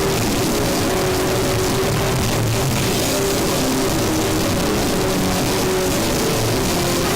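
Noisecore band playing: a dense, unbroken wall of distorted noise at constant loudness, with shifting guitar notes underneath.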